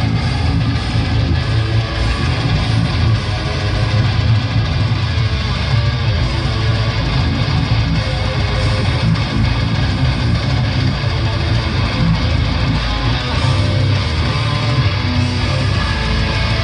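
Loud electric guitar music playing continuously with a heavy low end.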